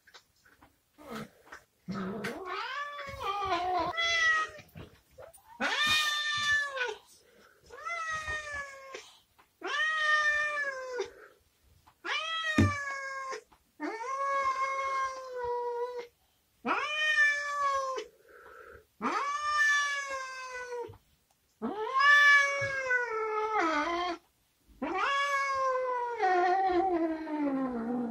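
Domestic cat meowing over and over: about ten long, drawn-out calls, each rising then falling in pitch, with short pauses between them.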